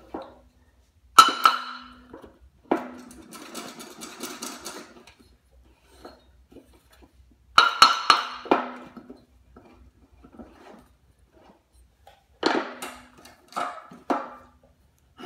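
Hammer blows on a Briggs & Stratton lawn mower's flywheel, knocking it loose from the crankshaft: sharp metallic strikes that ring briefly, about seven in spaced groups, with a stretch of rattling after the second.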